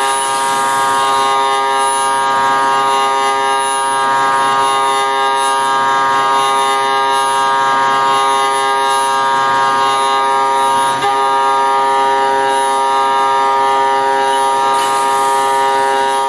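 CNC lathe at work, giving a steady whine with many overtones, with a brief dip about eleven seconds in.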